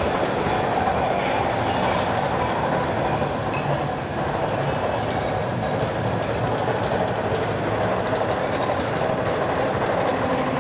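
Amusement park ride running on its track, a steady unbroken rolling noise.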